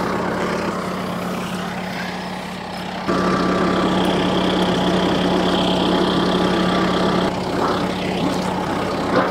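Kubota M4 tractor's diesel engine idling steadily, growing a little louder about three seconds in.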